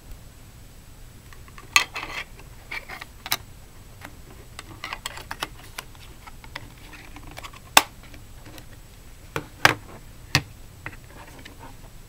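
Hard plastic clicks and rattles as the battery cover of a Philips Pronto TS1000/01 remote is closed and the remote is handled and turned over: a handful of sharp clicks with softer scraping between them.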